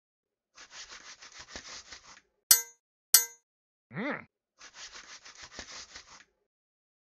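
Cartoon sound effects: a quick patter of running footsteps, then two sharp metallic clangs that ring briefly, a short voiced grunt that rises and falls in pitch, and another patter of running footsteps.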